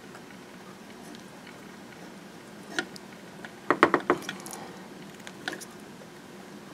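Light clicks and handling noises as a stripped wire is pushed into an insulated quarter-inch female disconnect terminal. One click comes about three seconds in, then a quick cluster of four or five clicks near four seconds, over a low steady hum.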